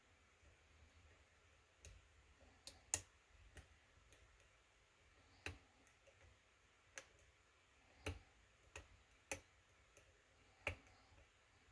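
Faint, irregular clicks of a lock pick and tensioner working the pins inside a pin-tumbler cylinder lock, about ten sharp ticks spread unevenly.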